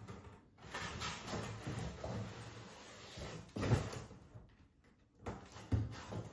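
Bicycle packaging being handled: a few seconds of rustling, then a sharp knock, and two more knocks near the end.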